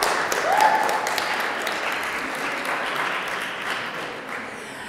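Audience applauding, the clapping slowly dying down toward the end, with a short voice heard over it near the start.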